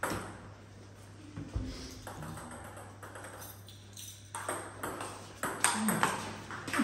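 Table tennis ball in play: a click at the start, then, about four and a half seconds in, a serve and rally of quick sharp clicks as the ball strikes the paddles and the table.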